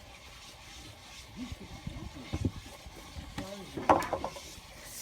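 Faint talking in the background, with a short sharp knock about four seconds in.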